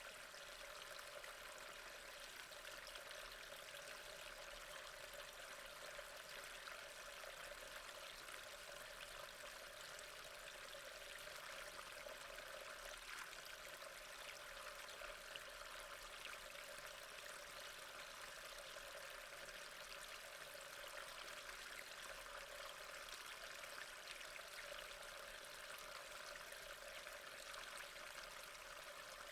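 Water falling and rushing over a waterfall, a steady, even splashing that does not change.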